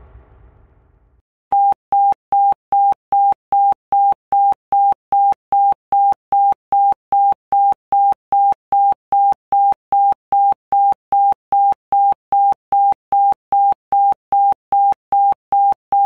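Emergency alert beep: a single steady tone pulsed on and off evenly, about two and a half beeps a second. A low noise dies away in the first second before the beeps start.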